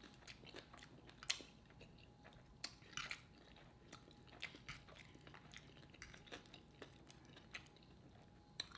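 Quiet close-miked eating: chewing with scattered crunches of tortilla chips and light clicks of a fork against the serving tray.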